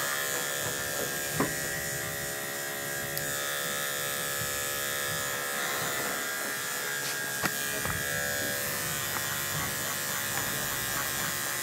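Andis five-speed electric dog clipper with a guard comb running steadily, buzzing as it cuts the dog's hair behind the neck, with a couple of brief clicks along the way.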